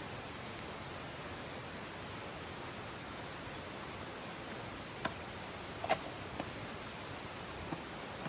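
Wood campfire burning: a steady hiss with a few sharp crackling pops, the loudest about five and six seconds in.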